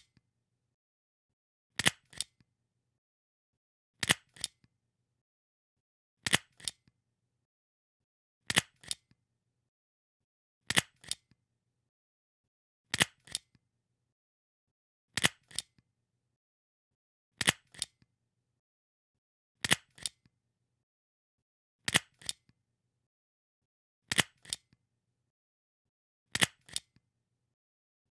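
Stapler being pressed over and over, about once every two seconds: each press a quick, sharp double click.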